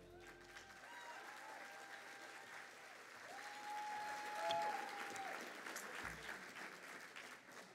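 Audience applauding, swelling to its loudest about halfway through and easing off toward the end.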